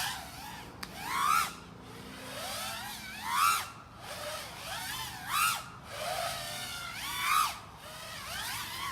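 FPV quadcopter's brushless motors whining through throttle punches: four swells about two seconds apart, each rising in pitch and falling away, over a faint steady hiss.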